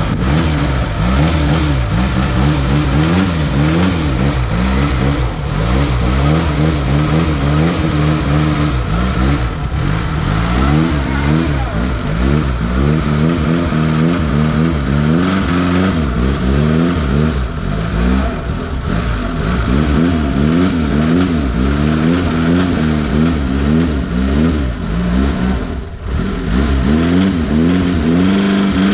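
Off-road vehicle's engine revving up and down again and again, its pitch rising and falling about once a second, as when working to get through rough ground.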